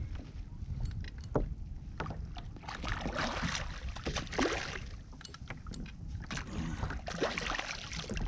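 A hooked snapper splashing at the surface beside a kayak as it is brought in on a spinning rod, with short knocks and wind rumbling on the microphone.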